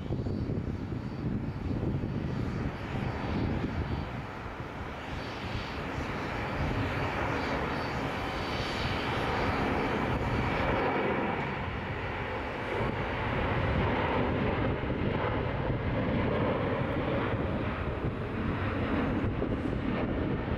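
Jet airliner engines running, a steady rush with a faint high whine through the middle.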